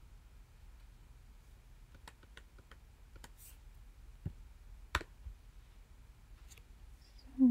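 Sparse keyboard key taps and clicks while code is edited on a computer, one sharper click about five seconds in. A brief, louder low sound comes right at the end.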